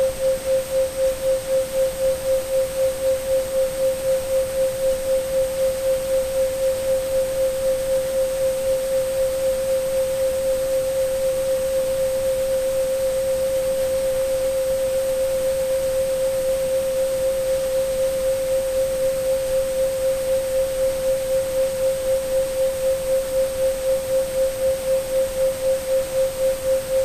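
Synthesized 528 Hz sine tone pulsing about eight times a second, the 7.83 Hz beat, over a steady hiss of mixed pink and white noise. The pulsing grows shallow and nearly steady midway, then deepens again, and a faint high steady tone sits above it all.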